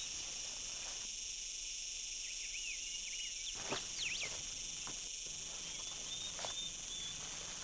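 Outdoor ambience of insects chirring steadily at a high pitch, with a few short bird chirps near the middle and again near the end, and a few soft clicks.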